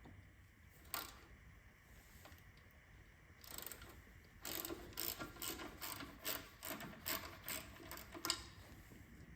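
Hand ratchet wrench clicking: one click about a second in, then a run of about ten quick clicks, two to three a second, as a fastener is turned during engine disassembly.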